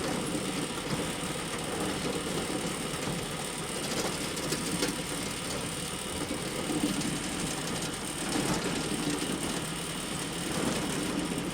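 Hay bale elevator running: the steady mechanical clatter and rattle of its chain conveyor and drive.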